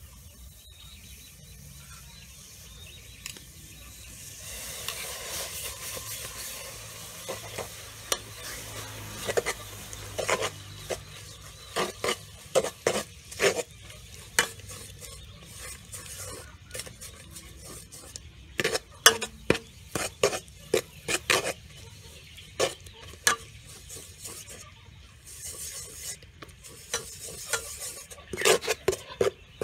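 A metal ladle stirs bubbling caramel in an aluminium pot, scraping and knocking in irregular clusters against the pot's base and sides. A soft sizzle comes in about four seconds in.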